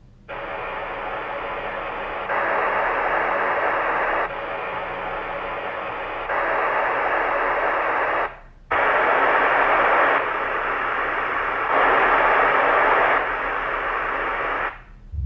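Hiss-like test noise played back through a loudspeaker, in stretches of about two seconds that step between a softer and a louder level, with a short break about eight and a half seconds in. Picked up by a GoPro Hero 3 camera's built-in microphone, which gives it a thin, mid-range-only sound.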